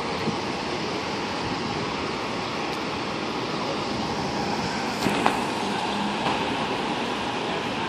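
Steady roar of city street traffic, with two short knocks about five seconds in.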